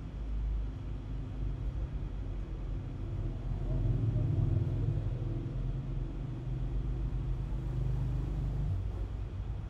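A steady low rumble that swells in the middle and eases off near the end.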